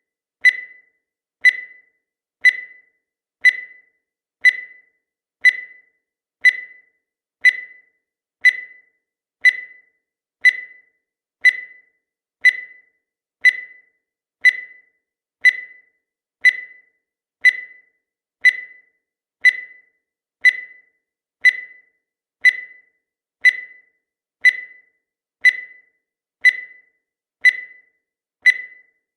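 Countdown timer sound effect: a short, high electronic beep once a second, each one starting sharply and fading quickly, evenly spaced.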